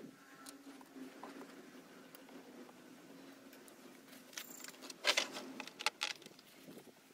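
Hands unclipping plastic connectors and hoses on top of a car engine: light scattered ticks, then a cluster of sharp plastic clicks and rattles about five seconds in, over a faint steady hum.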